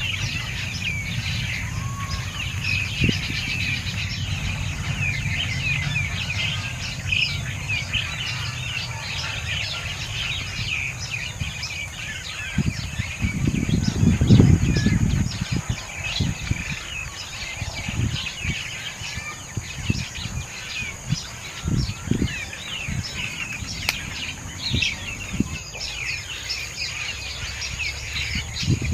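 Many small birds chirping continuously in quick, overlapping calls, over a low rumble during the first half and scattered low knocks and thumps after about the middle.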